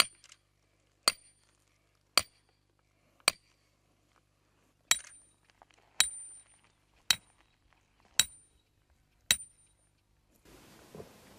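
A metal mooring stake being struck with a hammer: nine sharp metallic clinks, evenly spaced about a second apart, each with a brief high ring.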